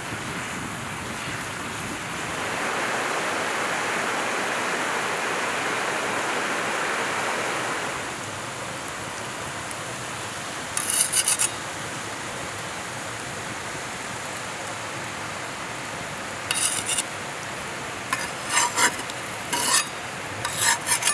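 Wood fire burning with a steady hiss that swells for several seconds near the start, then sharp crackling pops: one cluster about halfway through and several more in the last few seconds.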